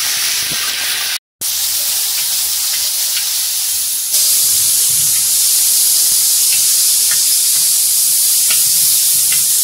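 Strips of carne de sol (salt-cured beef) frying in hot oil on a plough-disc griddle: a steady, loud sizzle as the meat goes onto the metal and is stirred. The sizzle breaks off in a brief silent gap just over a second in, then grows louder from about four seconds in.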